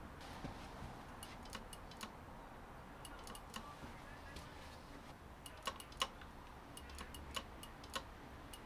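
Irregular light clicks and taps from hands working on a motorcycle's handlebar fittings: cable ties and a plastic handguard. Two sharper clicks come about six seconds in.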